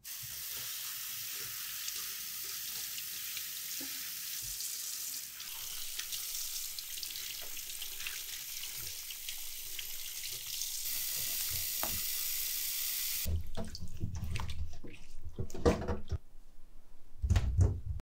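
Kitchen tap running steadily into a sink for about thirteen seconds, then turned off, followed by irregular knocks and clatter of items being handled.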